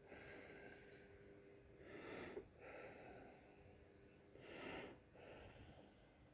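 Faint breathing close to the microphone, a louder breath coming about every two and a half seconds over near-silent room tone.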